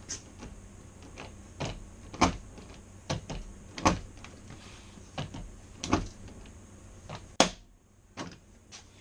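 Large hand pop-rivet gun being squeezed stroke after stroke on a door-handle rivet, a sharp click with each pull, about eight in all; the loudest, sharpest crack comes near the end, as the rivet's mandrel snaps off and the rivet is set.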